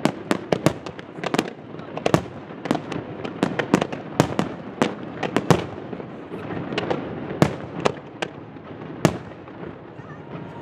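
Fireworks going off in a rapid, irregular barrage of sharp bangs and cracks over continuous crackling, easing a little past the middle before a last loud bang near the end.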